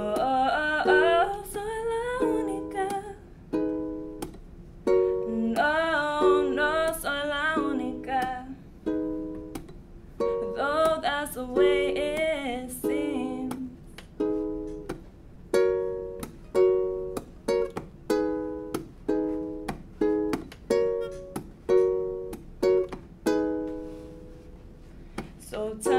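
Ukulele strummed in steady chords, with a woman's voice singing three sung phrases over it in the first half; in the second half the ukulele plays on alone as an instrumental passage.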